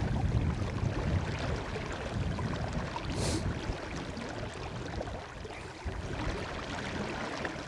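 River water running over a riffle, with wind buffeting the microphone as a low rumble, and a brief hiss about three seconds in.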